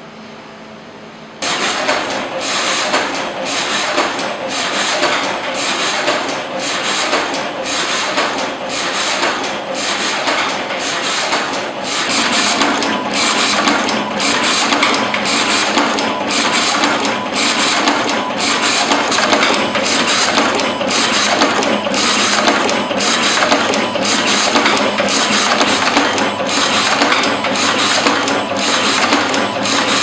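Automatic wire stripping, twisting and soldering machine running: a fast, rhythmic mechanical clatter that starts abruptly a second or two in. A lower steady hum joins partway through.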